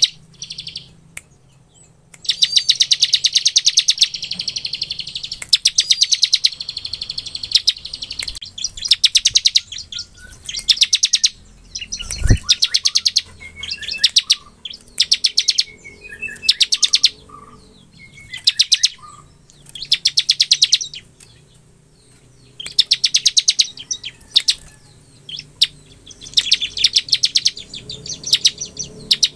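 Bar-winged prinia (ciblek) singing in the rapid drilling trill called 'ngebren': phrases of fast, evenly repeated high notes lasting from half a second to about two and a half seconds, with short gaps between. A single low thump about twelve seconds in.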